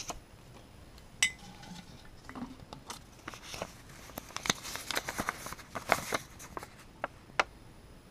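Handling a glass jar of folded paper notes: a sharp clink about a second in, then crinkling and rustling with many small clicks as a paper note is taken out and unfolded.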